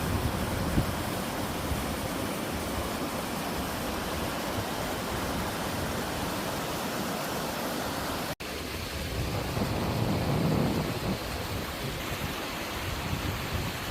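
Water of a two-tier slide waterfall, pouring over sloping rock in a mountain stream, rushing steadily. About eight seconds in the sound cuts out for an instant and resumes with a somewhat deeper rush.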